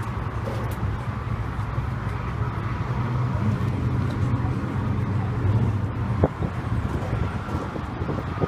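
A vehicle engine running steadily, with a single sharp click about six seconds in.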